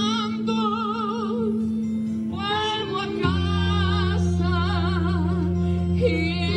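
A woman's voice singing a slow song with vibrato over long held accompaniment chords. The low chord changes about three seconds in.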